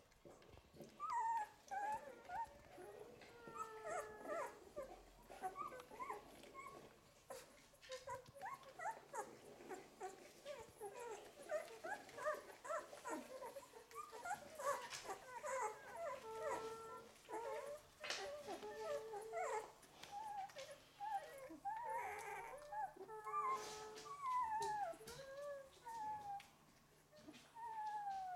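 Eleven-day-old golden retriever puppies whimpering and squeaking, many short, high, overlapping whines that slide up and down in pitch.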